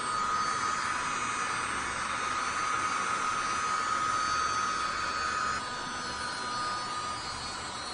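A small USB-powered keyboard vacuum running with a steady high whine over a rushing air noise. About two-thirds of the way in the sound suddenly drops a little quieter and the whine thins.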